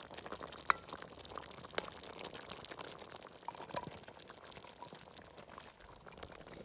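Stew simmering in a cast-iron potjie pot, bubbling quietly with many small scattered pops and plops.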